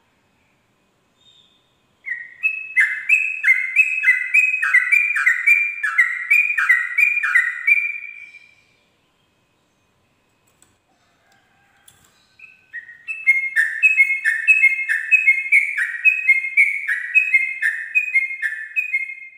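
Yellow-vented bulbul (trucuk) singing its long rolling 'ropel' song: two bouts of rapid, repeated bubbling notes, each about six seconds long, with a pause of a few seconds between them.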